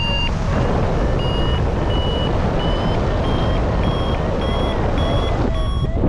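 Paragliding variometer beeping in quick, regular short tones, about one and a half a second, its pitch creeping up over the first few seconds: the climb tone that signals the glider is rising in lift. Heavy wind rumble from the airflow on the microphone underneath.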